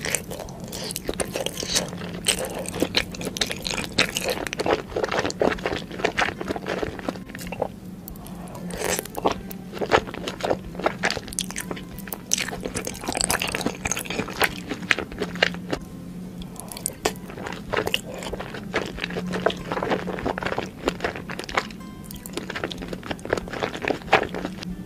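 Close-miked eating of soft, cheesy lasagna: wet chewing, lip smacks and mouth clicks coming thick and irregular, with steady background music underneath.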